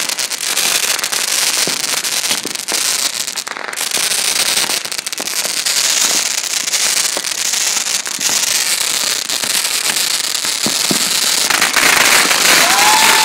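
Fireworks going off close by: dense crackling with many sharp pops throughout, growing louder near the end as a volley of comets shoots up.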